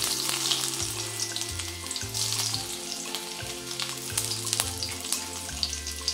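Chopped garlic and mustard seeds sizzling in very hot oil in a kadai, a steady frying hiss with sharp crackles and pops throughout: a tadka (spice tempering) for sambar.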